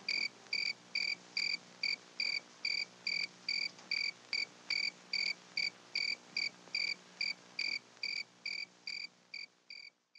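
Cricket chirping in an even rhythm, about three short chirps a second, growing fainter near the end.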